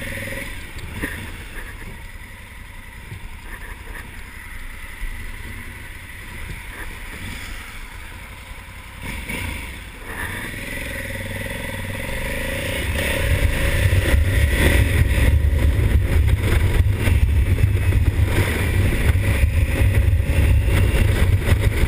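2020 Honda Africa Twin's 1084 cc parallel-twin engine pulling away at low speed, then getting much louder about two-thirds of the way in as the bike accelerates onto the road, with a heavy low rumble of engine and wind on the microphone.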